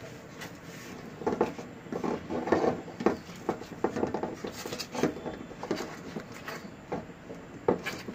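A silicone spatula stirring thick caramel sauce in a metal pot, with irregular scrapes and soft knocks against the pot starting about a second in.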